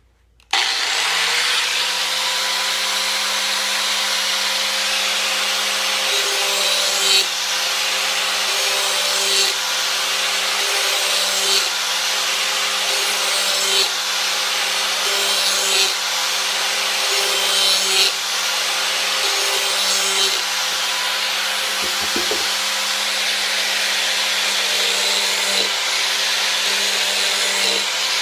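Handheld angle grinder switched on and spinning up, then grinding the edge of a steel lawn mower blade, with the grinding swelling about every two seconds as the disc is run forward along the edge in repeated passes.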